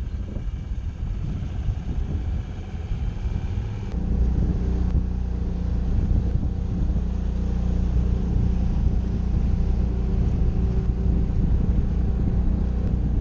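Rough wind noise on the microphone over a low engine rumble, then, after a cut about four seconds in, a boat's engine running with a steady low hum.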